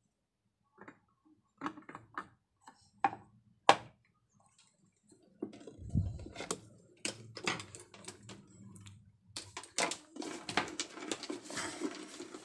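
Handling noise on a wooden workbench as a cable and small parts are picked up and moved around a speaker compression driver: scattered clicks and knocks, with one sharp click a little before four seconds in. From about five and a half seconds there is steady rustling and scraping with more clicks and a low thump.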